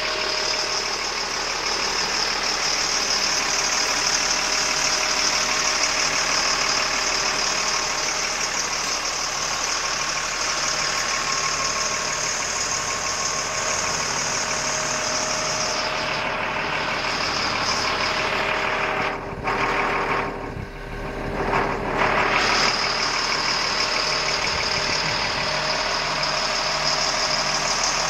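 Diesel engine of an M1088 military tractor truck idling steadily, with a steady hiss over it; the sound briefly goes muffled and dips about twenty seconds in.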